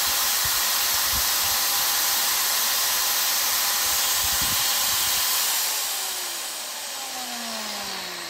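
Handheld power tool's electric motor running steadily off a 230 V inverter powered by the camper's leisure battery, a load test of the battery. About five and a half seconds in it is switched off and winds down, its pitch falling.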